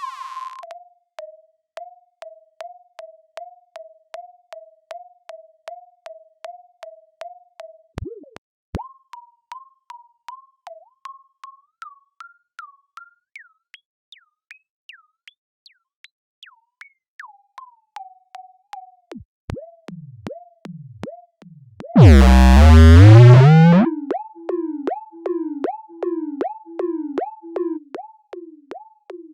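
Synthesized robot-style electronic blips in a quick, steady stream, two or three a second. The pitch holds level, then climbs step by step and falls back. About 22 seconds in comes a loud sweeping electronic blast lasting about two seconds, followed by a run of lower-pitched blips.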